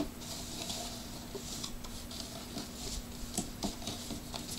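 Faint rustling and scattered light taps and clicks from a cardboard toy box with a plastic window being handled and shifted, over a low steady hum.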